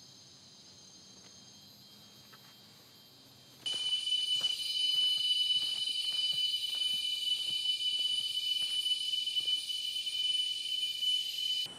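Rainforest insect buzzing: a loud, steady, high-pitched drone that starts suddenly a few seconds in and stops suddenly near the end, over a faint insect hum.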